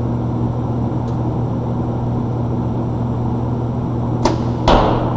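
A compound bow being shot: a sharp click about four seconds in, then half a second later a louder thump. A steady hum of ventilation runs underneath.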